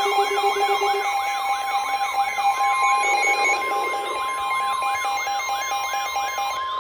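Emergency alert tones layered together: steady high alarm tones held under a fast sweeping, siren-like wail that rises and falls about three times a second. Near the end the wail and the lower tone stop, leaving one steady tone.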